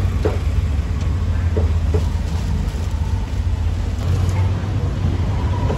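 A steady low mechanical drone, with a few short squeaks in the first two seconds.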